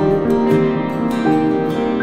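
Background music led by a plucked string instrument, playing notes in a steady rhythm.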